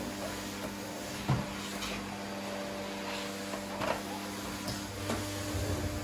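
A few separate light knocks and clicks of household objects being handled, the loudest about a second in, over a steady low hum.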